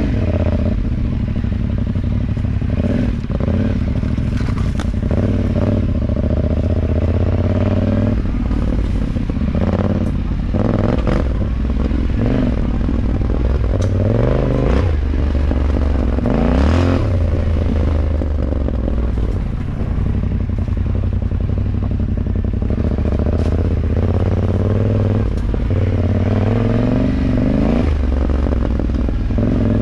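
Adventure motorcycle engine running at low trail speed, its note rising and falling with the throttle around the middle, with clattering and knocks as the bike bounces over the rough dirt trail.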